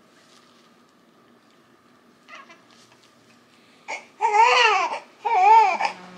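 Newborn baby crying: after a quiet start, a run of loud wails begins about four seconds in, each rising and falling in pitch.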